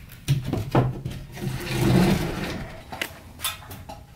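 Attic access hatch panel being pushed up out of its ceiling frame and slid aside: a few knocks, then a scraping slide, loudest about two seconds in, and two more knocks near the end.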